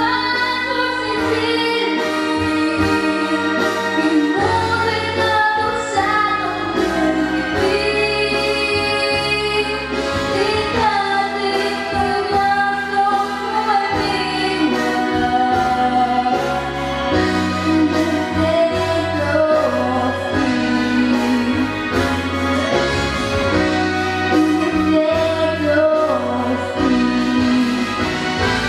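A female voice sings a melody with vibrato over instrumental accompaniment.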